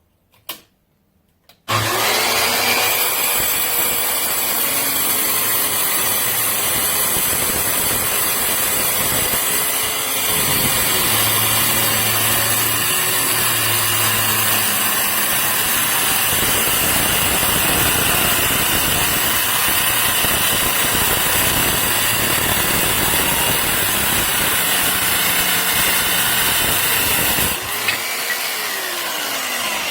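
A click, then a circular saw switches on and runs for about 26 seconds, cutting wood, its motor pitch sagging under load a few times. Near the end the trigger is released and the motor winds down, falling in pitch.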